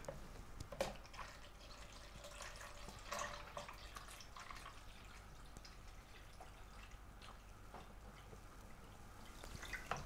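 Descaling solution poured from a plastic measuring jug into a coffee machine's plastic water tank: a faint trickle of water, with a few light knocks in the first few seconds.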